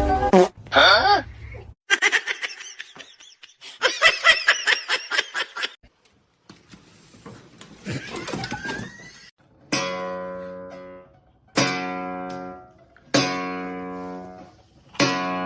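Brief sounds with wavering pitch in the first half, then four strummed guitar chords about a second and a half apart, each ringing out and fading.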